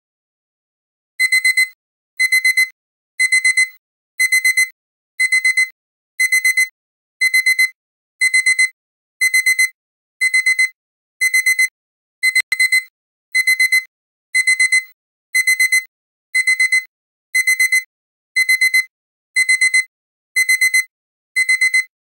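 Digital alarm-clock beeping: groups of four quick, high beeps repeating about once a second, starting about a second in, signalling that the countdown timer has run out.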